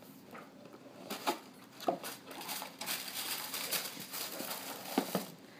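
A cardboard doll-outfit box being opened and tissue paper rustling and crinkling as it is pulled back from the dress inside, with a few light taps of the box.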